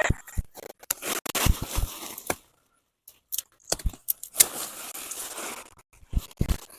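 Irregular rustling, scraping and crackling of soil and dry potato plant matter being dug through by hand, with a few dull thumps. The sound drops out briefly a little before halfway.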